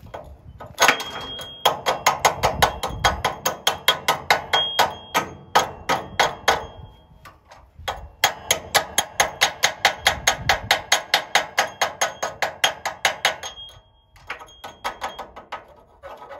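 Steel slag hammer chipping slag off a fresh stick weld: rapid sharp metal-on-metal strikes, several a second, in two long runs with a short break, then a few lighter taps near the end. The slag is stuck on harder than usual, so it takes repeated blows to knock it loose.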